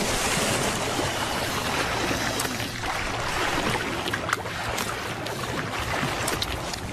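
Water splashing and churning as a Nile crocodile thrashes in shallow river water with its wildebeest calf prey in its jaws, with a few sharp splashes breaking through.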